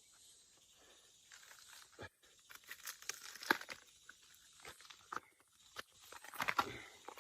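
Irregular rustling, tearing and crunching of plant material being handled, with sharp crackles, the loudest about three and a half seconds in and a dense cluster near the end.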